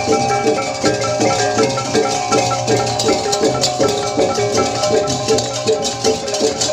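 Balinese processional gamelan (baleganjur) playing: small kettle-gong chimes strike a quick repeating pattern over a held gong hum, with clashing hand cymbals and drums.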